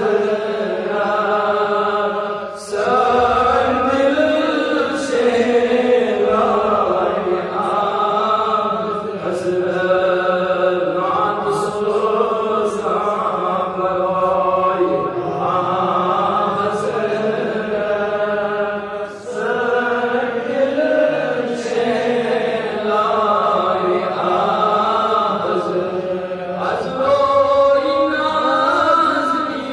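A man's voice chanting an Islamic devotional recitation into a microphone, in long drawn-out melodic phrases with short pauses for breath.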